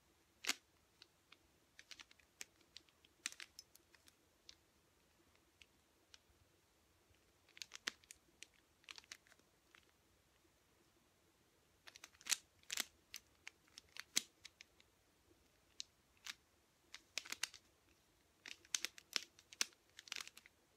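Plastic clicks and clacks of a 3x3 mirror cube's layers being turned quickly by hand during a solve. They come in irregular bursts of rapid turns separated by short pauses.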